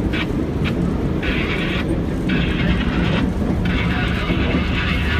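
Vintage R38/R40 subway car rumbling along the rails as it slows, heard from inside the cab, with several spells of hiss and a few sharp clicks over the rumble.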